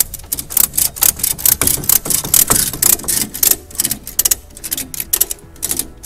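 A ratchet being worked to tighten a load or curtain strap on a truck trailer, giving rapid, uneven clicking. The clicks are dense for about four seconds, then come more sparsely.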